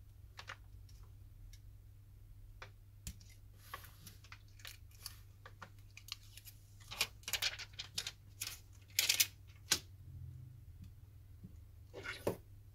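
Small, scattered clicks and taps of hands and tools handling smartphone parts on a workbench, busiest about seven to ten seconds in and again near the end, over a low steady hum.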